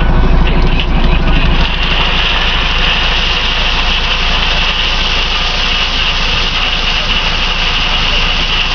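Crushed stone pouring out of the raised tailgate of a Schmitz tipper semi-trailer in a steady rushing hiss, over the MAN TGA truck's engine running steadily to power the tipping. The engine is louder for the first couple of seconds, then drops back as the stone's rush settles in.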